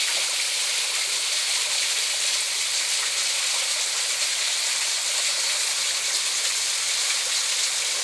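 Small waterfall in a forest stream, water pouring and splashing down a rock face: a steady, even rush of falling water.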